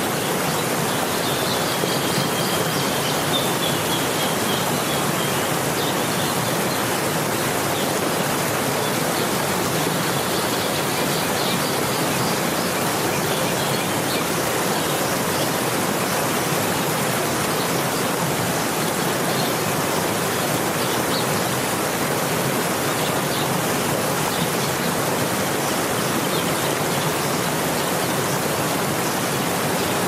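River water rushing and flowing in a steady, unbroken stream, with a few faint high chirps in the first few seconds.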